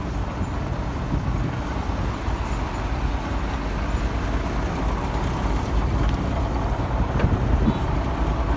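Steady low engine-like rumble of construction-site machinery, with a few faint knocks and clanks over it.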